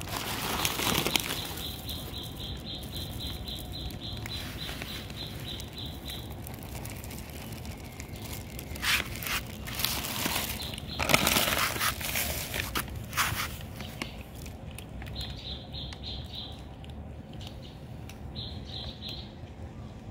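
Cats eating dry kibble off a wooden floor, with a few loud rustling, rattling bursts around the middle. A fast series of high, evenly repeated chirps, about five a second, runs for several seconds near the start and comes back briefly twice near the end.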